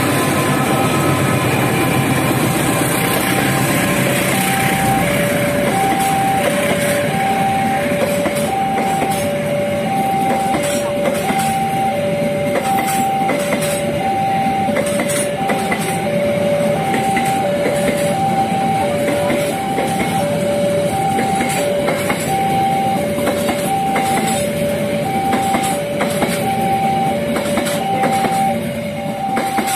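CC 206 diesel-electric locomotive and its long rake of passenger coaches running past at speed, wheels clicking over the rail joints. Over it the level crossing's warning alarm sounds steadily, alternating a high and a low tone, each about two thirds of a second long.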